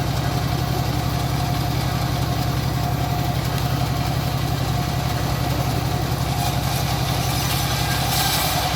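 Engine of a home-built bandsaw mill running steadily with a fast, even beat, with a brief hiss about eight seconds in.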